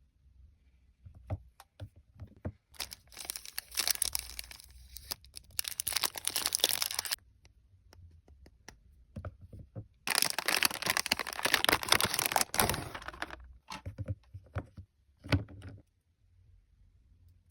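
Chocolate packaging being opened: a wrapper crinkling and tearing in two long stretches, with scattered taps and clicks before, between and after.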